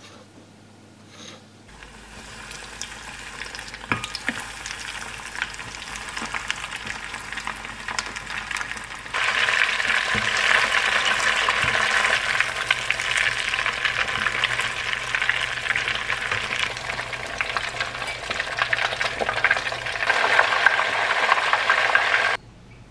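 Breaded croquettes deep-frying in a small pot of hot oil: a dense sizzle with crackling pops. It starts a couple of seconds in, jumps louder about nine seconds in, and cuts off suddenly near the end.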